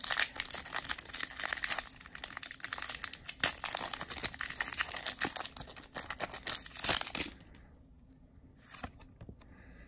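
A foil Pokémon trading card booster pack (Unbroken Bonds) being torn open and crinkled by hand, a dense crackling rustle that stops about seven seconds in.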